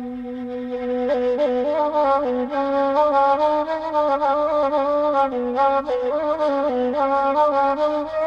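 Saluang, the Minangkabau bamboo end-blown flute, playing an ornamented melody that gently bends and steps in pitch. It comes in more fully about a second in.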